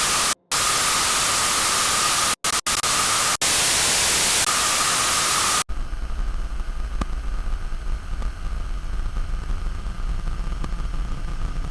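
Loud harsh static hiss with a faint steady whine inside it, dropping out to dead silence for brief moments several times, then cutting off abruptly about six seconds in. A lower, quieter rumbling drone takes over for the rest.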